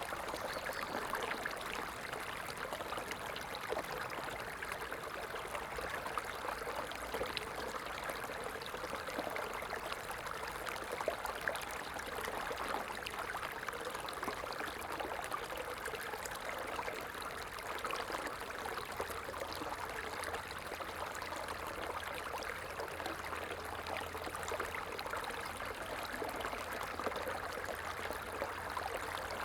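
Running water of a stream, flowing and trickling steadily with fine splashy crackle.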